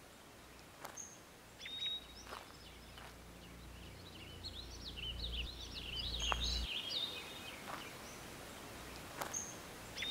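Woodland birds chirping and calling, faint against a quiet background, with a low rumble for a few seconds in the middle.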